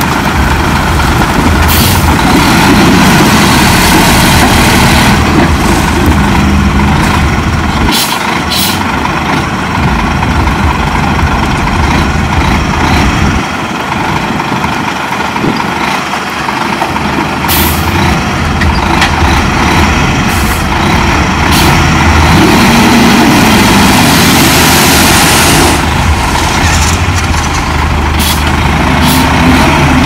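Heavy diesel earthmoving machinery at work, bulldozer and dump truck engines running under load, the engine note rising and falling. Short sharp noises cut in now and then, with a hiss lasting about a second near the end.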